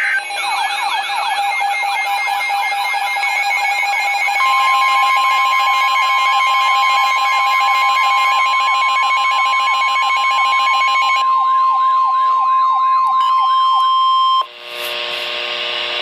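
Midland NOAA weather radio sounding its alert siren for a tornado warning, a fast repeating warble. From about four seconds in, the broadcast's steady 1050 Hz warning tone sounds with it. Both cut off together about a second and a half before the end, leaving a hiss of radio static as the audio opens for the voice message.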